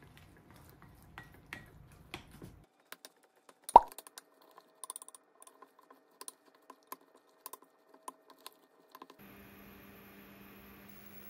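A spoon clicking and tapping against a glass mixing bowl as a thick chive, flour and egg batter is stirred, with one sharp knock about four seconds in and lighter irregular clicks after it. Near the end the clicks stop and a steady electrical hum takes over.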